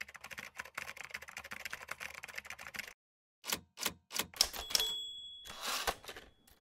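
Typewriter sound effect: rapid key clacks for about three seconds, then after a short pause a few single strikes and a ringing bell ding about four and a half seconds in, followed by a brief rushing swell.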